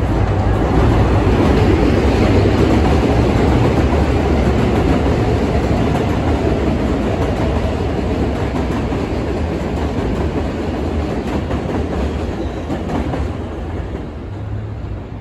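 New York City subway train passing on the elevated Jamaica Line's steel structure overhead, with a steady, loud rumble and clickety-clack of wheels on the el tracks. It is loudest in the first few seconds and fades near the end as the last cars go by.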